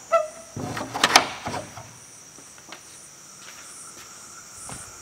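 A short creak, then a loud clatter of knocks and rattling about a second in. Crickets chirp steadily in the background.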